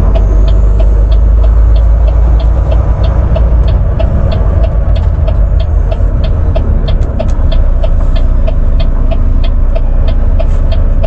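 Inside a Volvo semi-truck cab: the diesel engine's low rumble under a steady, even ticking of the turn signal, about three ticks a second.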